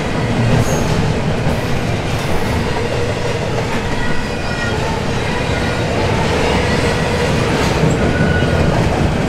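Double-stack intermodal freight train's well cars rolling past: a loud, steady rumble and clatter of steel wheels on the rails, with faint thin squealing tones from the wheels.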